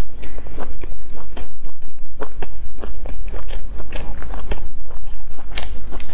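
Close-miked chewing of a mouthful of stuffed flatbread with sausage and vegetables: a loud, irregular run of quick clicks and mouth noises.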